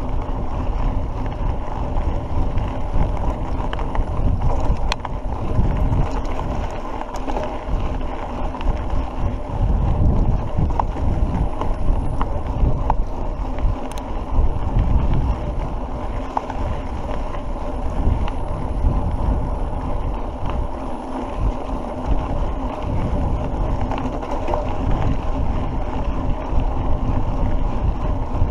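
Mountain bike rolling along a dirt road, its tyre and drivetrain noise under gusty wind buffeting the microphone, with a few light clicks from bumps.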